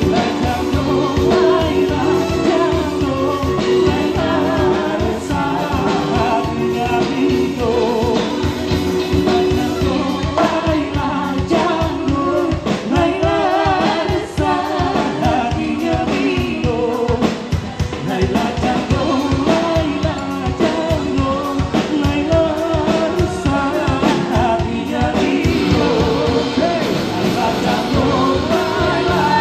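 Live band performing a song: several voices singing together into microphones over electric bass and guitar, with a steady beat, all amplified through a PA.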